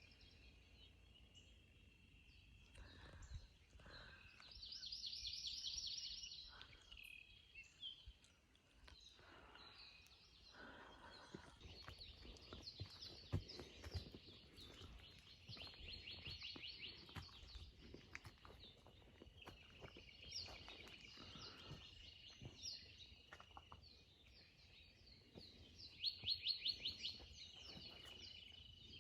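Several birds chirping and singing, faint, with a few rapid trills of quickly repeated notes, the loudest about five seconds in and near the end, over a steady high tone that comes and goes.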